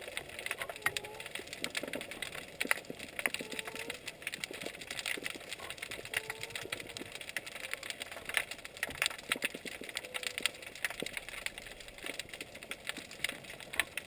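Underwater crackle of a rocky reef: a dense, irregular stream of sharp clicks from snapping shrimp. A few short, faint gliding tones come through now and then.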